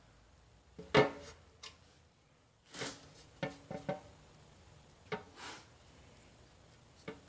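Hands working a steel oil pan and a metal tube of RTV sealant: a sharp clack about a second in, then a scatter of lighter taps and clicks against the pan, with two short rubbing swishes.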